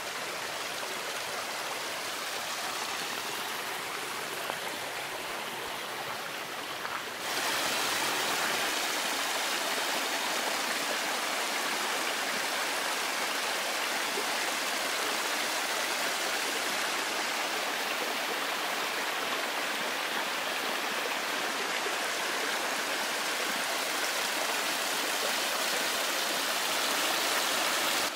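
Stream water rushing over stones in a steady rush that grows louder and brighter about seven seconds in.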